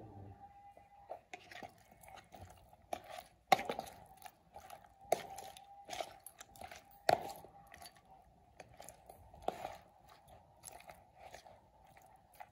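Raw fish chunks being mixed with lemon juice by hand and spoon in a plastic bowl: irregular slaps and clicks as the pieces and spoon knock against the bowl, with sharper knocks about three and a half and seven seconds in. A faint steady hum runs underneath.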